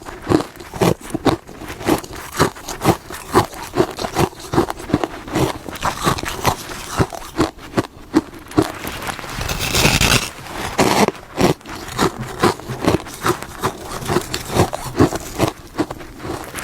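Freezer frost being bitten and chewed, crisp crunches at about two to three a second, with a longer scraping crunch about ten seconds in.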